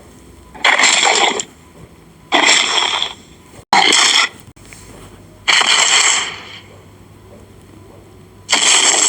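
Dinosaur sound effects: five separate bursts of harsh crunching noise, each about a second long, starting suddenly and fading out, spaced one to three seconds apart.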